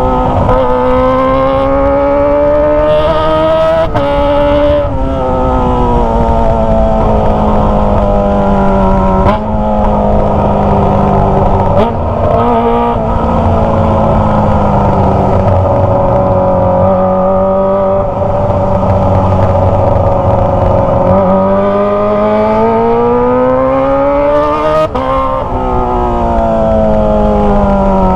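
Kawasaki ZX25R 250cc inline-four engine through a Toce aftermarket exhaust, ridden under load. Its high note climbs, breaks sharply and drops at each gear change, several times: a few seconds in, twice around the middle and again near the end. Between the rises it holds a steadier cruise.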